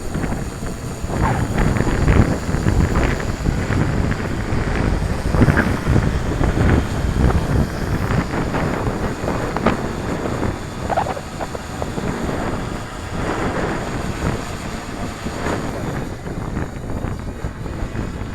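Strong gusty wind buffeting the microphone, rising and falling unevenly in low rumbling surges.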